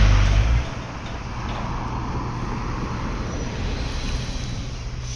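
Steady road and traffic noise. A nearby engine's low hum drops away about half a second in and comes back near the end.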